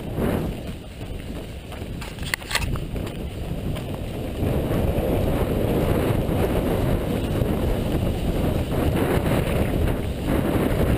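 Wind buffeting the microphone of a runner's camera, a low rumbling noise that grows louder about four seconds in, with a few short clicks a little over two seconds in. It is a headwind on the run.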